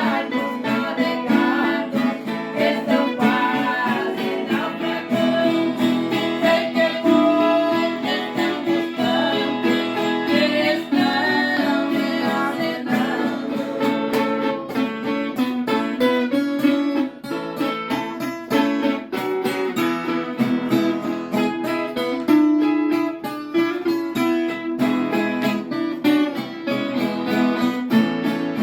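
Acoustic guitar strummed as accompaniment to singing of a Christian praise song.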